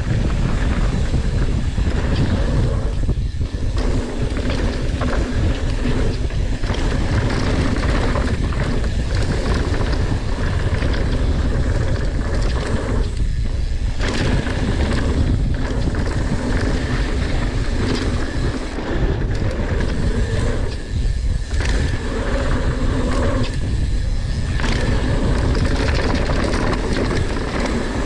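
Mountain bike riding down a dirt bike-park jump trail: a steady rolling rumble of tyres on hard-packed dirt, with wind and many small knocks and rattles from the bike. The rumble drops out briefly a few times.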